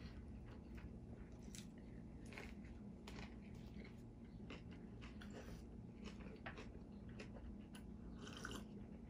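A man biting and chewing a soft Subway sandwich: faint, scattered mouth and chewing sounds over a steady low room hum, with a sip from a plastic cup near the end.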